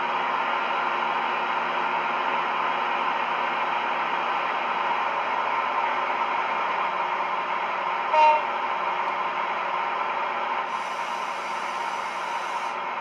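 Model railway DCC sound decoder playing a Class 68 diesel locomotive's engine idling steadily through a small EM1 speaker paired with a bass-enhanced speaker. A short horn toot comes about eight seconds in, and a high hiss runs for about two seconds near the end.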